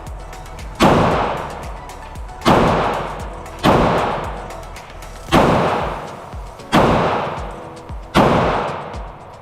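Six 9mm pistol shots from a Glock 48, fired one at a time about one to one and a half seconds apart, each with a long echoing decay.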